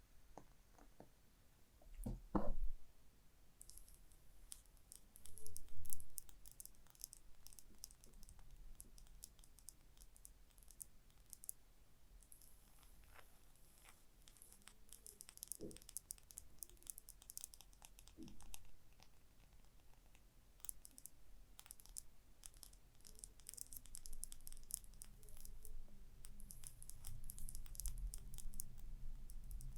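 Fingernails scratching and tapping on small objects: runs of quick, light, crisp scratches, with a few louder knocks about two seconds in and around the middle.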